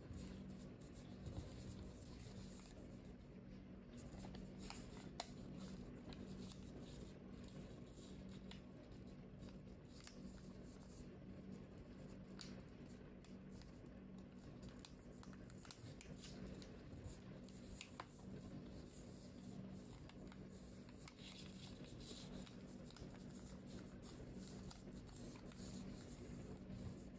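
Faint crinkles, taps and small clicks of paper being folded, creased and tucked by hand, over a steady low hum.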